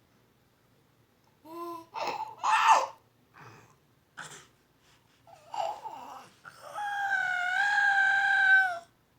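A baby fussing and crying in short high-pitched cries, then one long held wail of about two seconds near the end.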